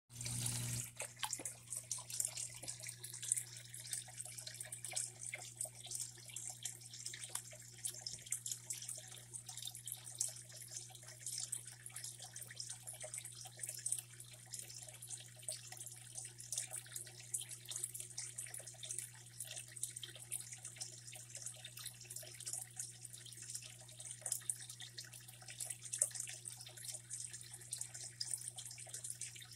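Aquarium filter return splashing and trickling into the tank water without a break, over a steady low hum from the filter pump.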